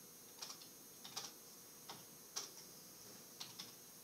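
Faint, scattered keystrokes on a computer keyboard: about half a dozen separate clicks spaced irregularly, not a fast run of typing.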